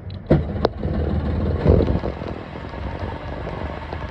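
Boat's outboard motor starting: two sharp clicks, then the engine catches and runs at a steady idle.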